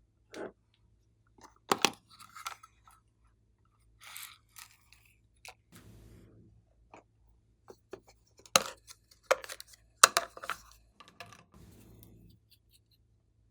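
Glossy slime being squished, pressed and stretched by hand: irregular sticky pops and clicks with softer squelching between, the loudest pops about two seconds in and in a cluster around nine to ten seconds.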